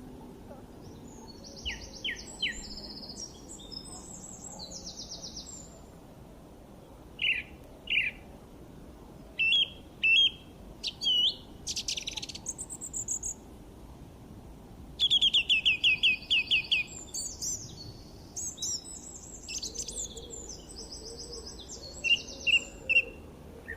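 Several songbirds singing and calling: scattered high chirps and fast trills, with one bird giving a quick run of repeated notes about fifteen seconds in.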